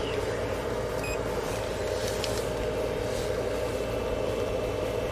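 A steady, even drone with no separate events.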